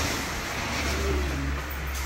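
Motor vehicle running: a steady low rumble under even road hiss, growing stronger about a second in.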